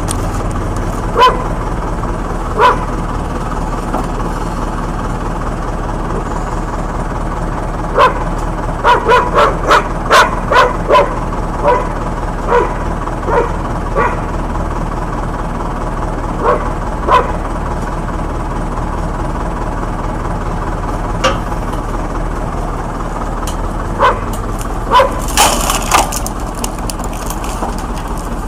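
A dog barking in short, repeated barks, over a steady low machine hum, with a louder noisy burst near the end.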